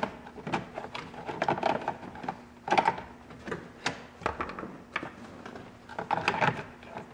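Plastic steering-column shroud being worked into place around the switch stalk and its screws snugged down: irregular plastic clicks, taps and scraping, with sharper knocks about three and four seconds in.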